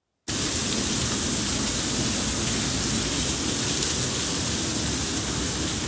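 Rainwater pouring down through a leaking ceiling in a steady, loud rush, starting abruptly just after the start.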